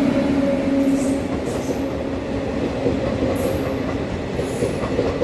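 Passenger coaches of an Indian Railways train rolling past: a steady rumble of wheels on rails under a low hum that slowly fades. Several short, high wheel squeals come through it.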